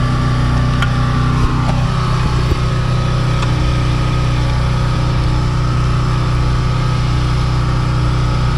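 A motor or engine running steadily at an even pitch, with a few light clicks near the start.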